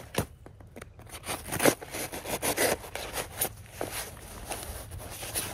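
Irregular scraping and rubbing strokes of digging in soil and cardboard by hand, planting onion sets.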